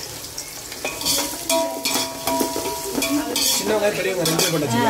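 Metal ladle scraping and clinking against a metal pot as sliced shallots are stirred into hot oil, with the onions sizzling as they start to fry. Several scrapes and clinks, one leaving a short metallic ring.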